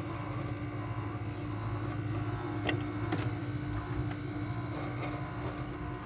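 Early-2000s Whirlpool window air conditioner running with its compressor on: a steady low hum with a steady tone above it, and two faint clicks a little before the middle. The fan motor's bearings are stiff and dry, so the fan is struggling to turn.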